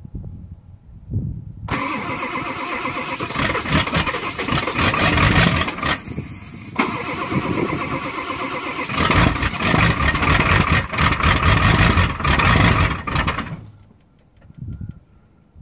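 Ford 7.3 L V8 diesel being cranked on a cold start at about 10° without its block heater plugged in. The starter turns it over in two long spells with a short break between them; the second spell is louder, then the sound cuts off suddenly near the end.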